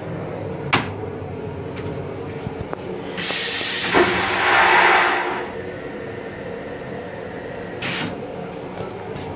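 M8 railcar toilet flushing: a hissing rush starts about three seconds in, a thump follows as it opens to the bowl, and a loud whoosh of about a second and a half fades out, with a short hiss again near the end. Under it the railcar's steady running rumble, and a single knock just under a second in.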